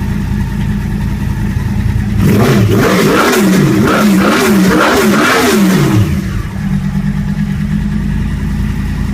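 2009 Yamaha R1's crossplane inline-four idling, then blipped through several quick rises and falls in revs about two seconds in, settling back to idle after about four seconds. The engine is running after a fresh oil change.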